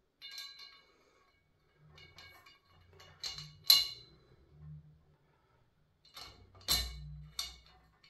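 Powder-coated steel tubes of an IKEA RIGGA clothes rack knocking and clinking together as the crossbar is fitted onto the upright posts. The first knock leaves the hollow tube briefly ringing; the loudest knock comes about halfway through, and another run of knocks follows near the end.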